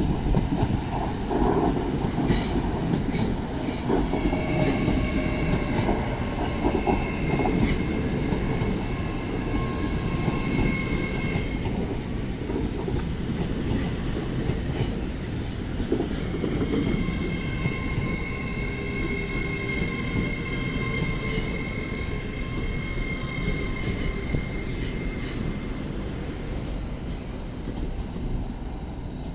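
A train rolling along the rails with a steady rumble, its wheels squealing in two long spells, one starting about four seconds in and another starting about a third of the way through, with sharp clicks of wheels passing over rail joints.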